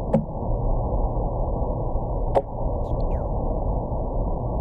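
Underwater recording of a northern seahorse: two sharp clicks about two seconds apart over a steady low hiss.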